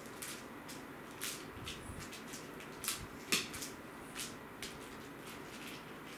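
Scattered light clicks and ticks at irregular intervals over a faint steady hiss, the sharpest pair about three seconds in.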